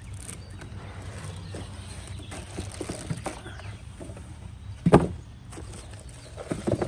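Handling noises of string trimmer parts and packaging being moved about: faint rustles and light clicks, with one sharp knock about five seconds in and a few quick clicks near the end.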